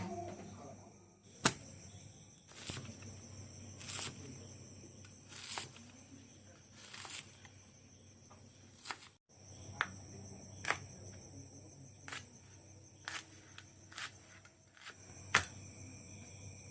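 Sharp clinks and knocks of kitchen utensils every second or two, some ringing briefly, over a steady faint high-pitched hum.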